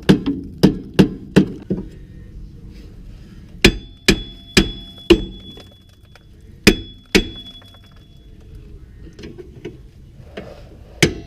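A mallet striking the back of a Scion tC's rusted rear wheel hub assembly again and again, each blow a sharp metallic bang, some with a short ring. Quick strikes at first, then slower spaced blows and softer taps, and fast strikes again near the end. The hub is seized in place and does not move.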